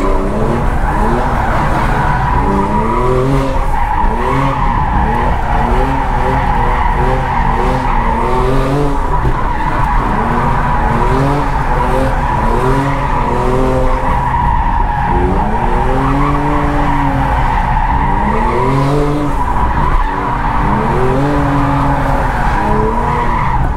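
BMW E46's petrol engine revving up and down over and over in first gear while the rear tyres squeal without a break, heard from inside the cabin. The rear differential is welded, so both rear wheels spin together and hold the skid.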